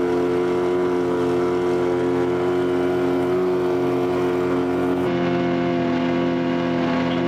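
Twin Yamaha outboard motors, one a 25 hp, running together at speed with a steady engine drone. About five seconds in, the sound jumps abruptly to a slightly different steady pitch.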